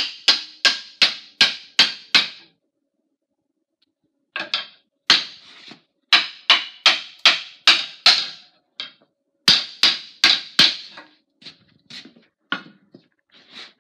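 Mallet blows driving a wooden tomahawk handle up into the eye of the head: runs of sharp knocks, about three a second, broken by short pauses, growing lighter near the end. The blows seat the handle so the pencil-lined inside of the eye marks the high spots on the wood for fitting.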